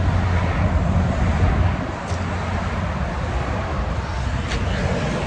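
A vehicle engine running steadily: a low, even hum under a broad rush of noise.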